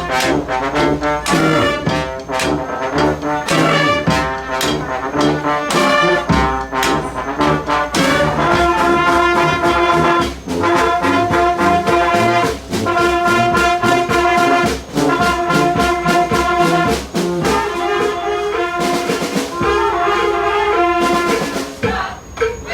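Street brass band playing a tune, trombones and trumpets over drums, with long held chords from about eight seconds in broken by short gaps.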